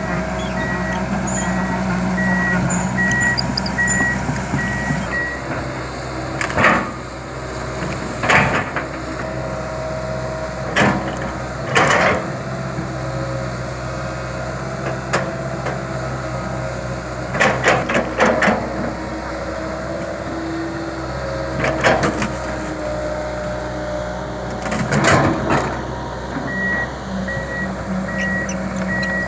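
Komatsu PC200 LC tracked excavator's diesel engine running steadily under work. Its travel alarm beeps at the start and again near the end, and a scattering of sharp clanks and knocks, about seven, come from the machine as it works between them.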